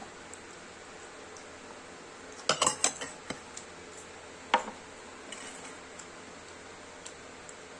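Dishes and cutlery clinking: a quick cluster of clinks and knocks about two and a half seconds in, then a single sharp clink with a short ring about two seconds later.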